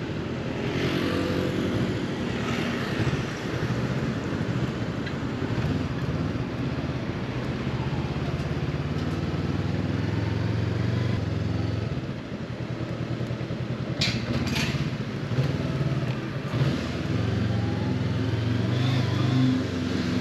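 Honda CB500X parallel-twin motorcycle engine running on the move, its pitch shifting a little with the throttle, under steady wind and road noise. Two sharp knocks come about fourteen seconds in.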